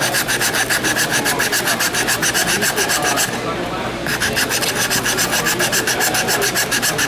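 Hardened glue-and-welding-powder patch on a gas tank being abraded by hand in rapid, even back-and-forth rasping strokes, about six a second. There is a brief pause about three seconds in. The cured repair is being smoothed down, now hard enough to machine.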